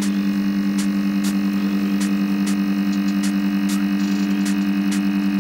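LCD debubbler machine running as it pressurizes its chamber for removing bubbles from a freshly laminated screen: a loud, steady electrical hum with sharp ticks about twice a second.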